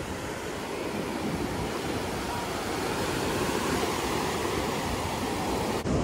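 Ocean surf washing in at the shoreline, a steady rushing noise with some wind on the microphone.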